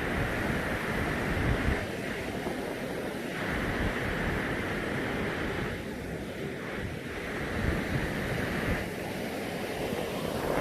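Rushing water of the Brúará river's waterfalls, a steady rush of white noise, with wind buffeting the microphone in uneven gusts.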